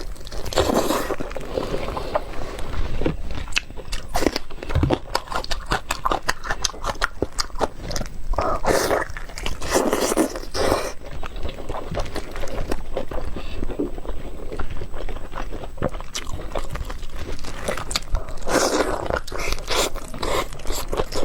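Close-miked eating: a person biting and chewing food, with wet mouth clicks and crunching that go on without a pause.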